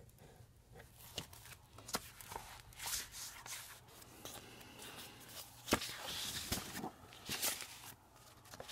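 Paper sheets and a cardboard folder being handled by hand: irregular rustling and sliding with sharp ticks, busiest in the second half.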